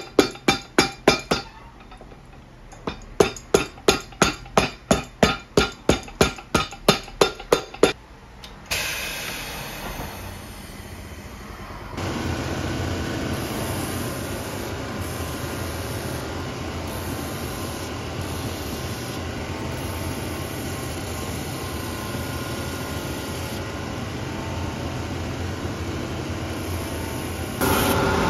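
Quick hammer taps on a boot's new rubber sole: a few at the start, a pause, then a fast run of about seventeen at three or four a second. About nine seconds in a shoe finishing machine's motor starts, and from about twelve seconds its sanding belt grinds steadily against the sole edge, louder near the end.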